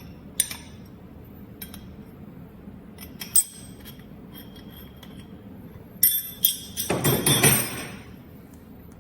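Metal spanners clinking against each other and the ultrasonic welding head's nuts as they are picked up and fitted, in a few sharp ringing clinks. A cluster of clinks about six seconds in is followed by a louder rasping burst as the spanners work the head loose.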